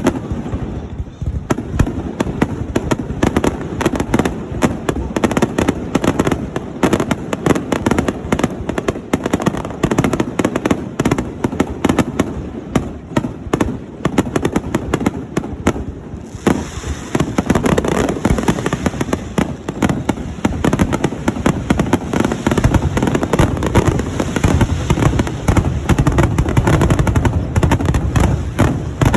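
Fireworks display: a rapid, unbroken string of aerial shells bursting and crackling, growing heavier and more crackly a little past halfway through.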